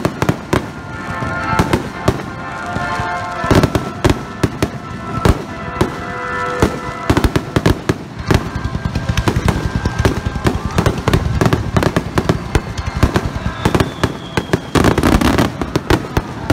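Aerial fireworks display: a rapid, continuous series of bangs and crackling bursts from exploding shells, several a second, with a dense cluster near the end.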